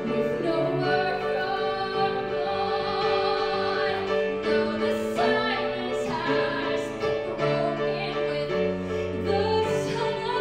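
A woman singing a slow song with piano and cello accompaniment, holding long notes.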